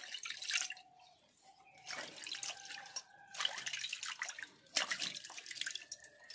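Water splashing and pouring in several short bursts a second or so apart.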